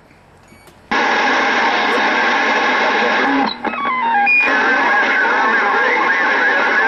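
CB radio receiver opening up on a strong incoming transmission about a second in: a loud band of static-like noise with wavering tones running through it, broken partway through by a few short stepped beeps, as another station keys up on the channel.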